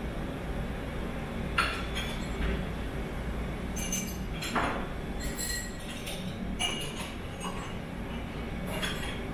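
Airport apron ambience: a steady low rumble with a few sharp clinks and knocks scattered through it, the loudest about a second and a half in and another near the middle.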